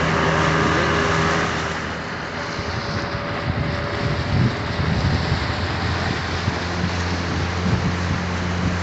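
Small fishing boat's motor running steadily with the boat under way, a constant low hum over the rush of water past the hull.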